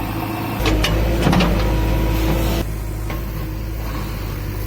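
JCB 3DX backhoe loader's diesel engine running steadily, with a few metallic clanks about a second in. A steady whine in the sound stops abruptly a little past halfway, and the engine note drops slightly.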